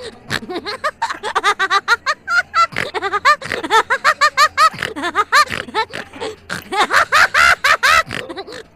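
High-pitched cartoon voices giggling and laughing in quick, rapid bursts that rise and fall in pitch.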